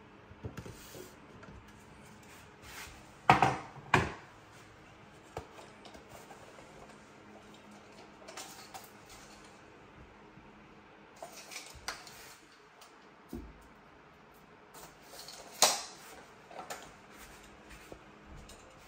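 Hard metal and plastic parts being handled and set down, such as wall-mount hardware and tools. Scattered clinks and knocks, the loudest a pair about three and a half seconds in and a single one late on, with small ticks between.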